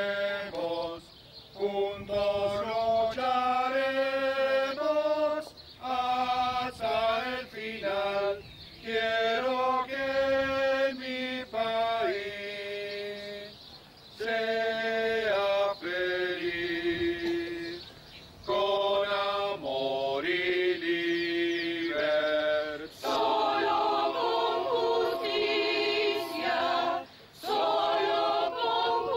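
Mixed choir of men's and women's voices singing a cappella, in held phrases separated by short breaths, the sound growing fuller in the last few seconds.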